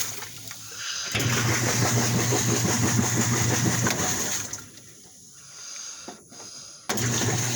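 Washing machine running: a steady electric hum with a rushing water hiss, which drops away twice and comes back abruptly.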